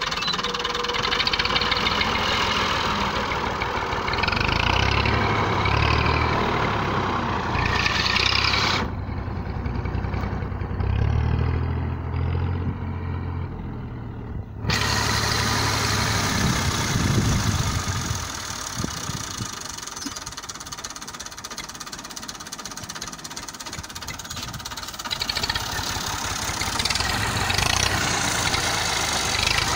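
Massey Ferguson 240 tractor's three-cylinder diesel engine running while the tractor is driven and turned, the engine note and loudness shifting with the throttle.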